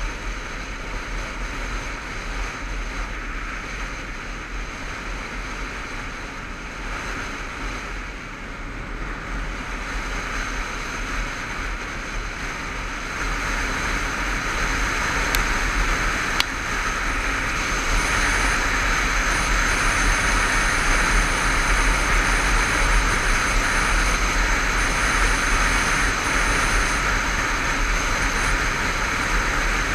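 Motorcycle riding on an open road, heard from the rider's helmet camera: a steady rush of wind and road noise over the engine, growing louder about halfway through.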